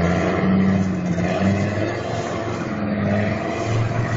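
Off-road 4x4's engine running hard under load, pushing through deep snow, heard from inside the cab; the low engine note swells and eases.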